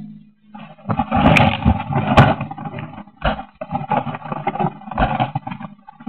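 Leaves and twigs brushing and scraping against a model airplane and its onboard recorder as the plane is dragged through brush, with sharp snaps about one and two seconds in. The motor is not running.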